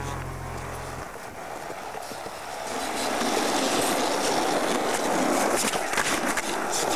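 Skateboard wheels rolling on concrete, growing louder about halfway through, with a few sharp clacks of the board near the end. A low droning tone cuts off about a second in.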